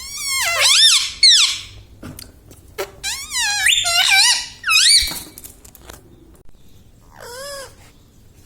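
Ringneck parrot giving high, wavering squeaky calls in three bouts: a long one at the start, another about three seconds in, and a short one near the end.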